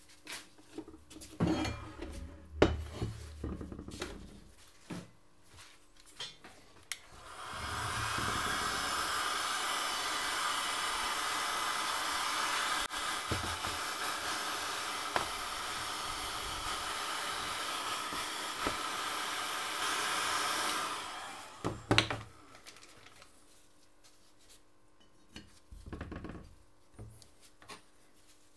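A small handheld heat gun blowing steadily for about fourteen seconds, starting some seven seconds in, heating the aluminium engine case half around a bearing bore. Before and after it, short knocks and clicks of parts and tools being handled on the wooden bench.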